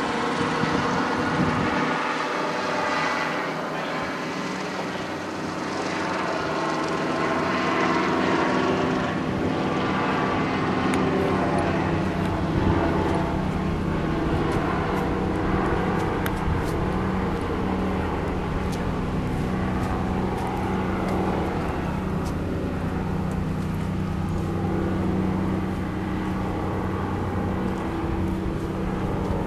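An engine running steadily: a constant low hum with a steady drone. A few faint clicks come in during the second half.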